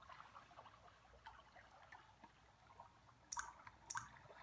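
Near silence, broken by two short sharp clicks a little past three seconds in, about half a second apart.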